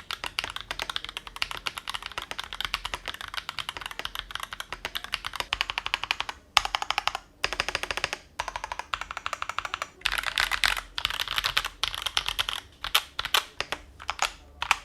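Typing test on a Rexus Daiva D68SF mechanical keyboard with Pressplay Jupiter tactile long-pole switches (factory-lubed) and cherry-profile keycaps: fast, steady keystrokes broken by a few short pauses.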